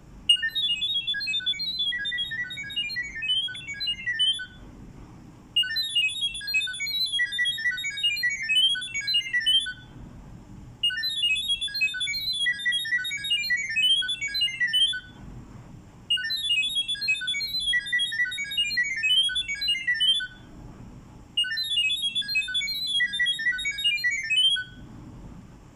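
Electronic Wi-Fi pairing tones: a rapid run of high beeps hopping between pitches, played in five bursts of about four seconds with short pauses between them. This is the sound-wave data signal that carries the Wi-Fi details to the video doorbell during setup.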